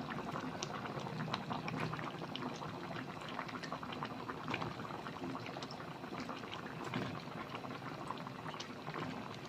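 Coconut-milk red curry bubbling at a boil in the pot, a steady crackle of many small popping bubbles.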